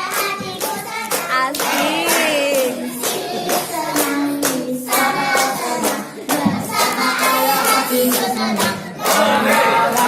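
A group of fathers and children singing their group cheer song (yel-yel) together, with hand claps through it.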